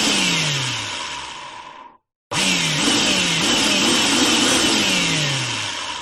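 Power drill run in two bursts: a short one of about two seconds whose motor pitch falls as it dies away, then after a brief gap a longer run in which the pitch repeatedly sags and jumps back up, fading out near the end.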